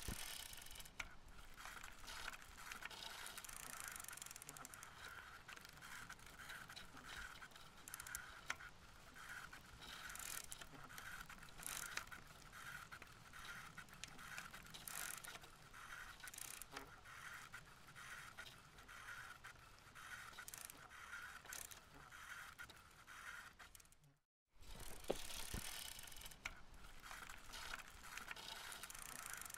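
Bicycle ridden along a concrete sidewalk: faint rattle of tyres and drivetrain, with a faint note that pulses about twice a second. The sound drops out briefly about 24 seconds in.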